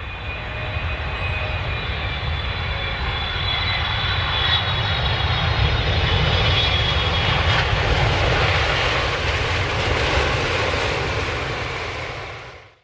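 Airplane engines of a low-flying aircraft passing: a steady rumble with a high whine that swells to a peak about halfway through, then eases off.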